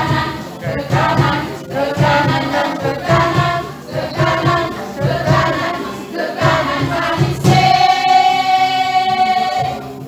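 Small choir singing in several parts, ending on a long held chord about seven and a half seconds in that fades out near the end.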